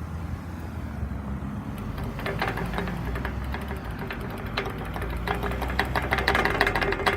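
Traffic at a signalized intersection, with vehicle engines running as cars go on the green. Over the engines come bursts of rapid clicking, densest in the last few seconds.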